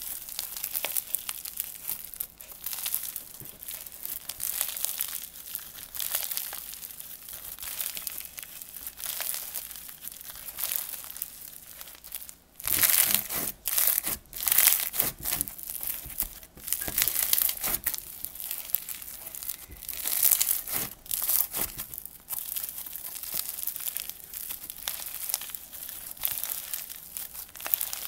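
Pink floam slime packed with foam beads being squeezed and pressed by hand, giving a dense run of irregular crunchy crackles and pops, with louder bursts now and then.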